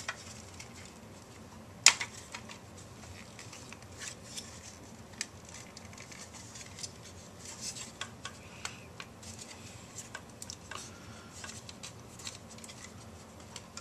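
Scattered light clicks, taps and rustles of plastic parts and wires being handled as an LED eye assembly is fitted into a hollow plastic skull, with one sharp click about two seconds in.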